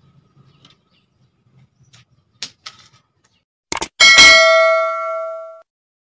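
Subscribe-button animation sound effect: a couple of quick clicks, then a single loud bell ding that rings for about a second and a half and cuts off suddenly.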